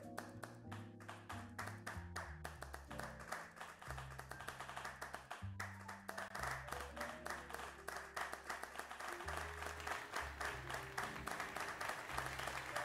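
Background music of slow, sustained low notes, with fast, continuous clapping over it that grows fuller about halfway through, like applause.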